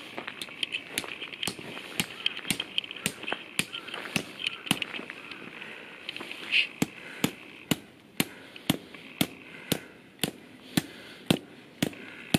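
A hammer striking tent pegs into gravel ground, in a steady series of sharp knocks about two a second.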